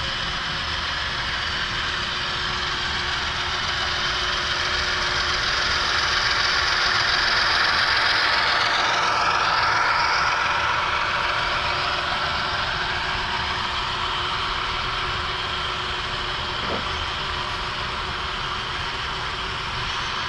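HO scale model train passing: a DCC sound-equipped diesel locomotive's engine sound with the hiss of wheels rolling on the track. It grows louder toward the middle as the train passes closest, then eases off.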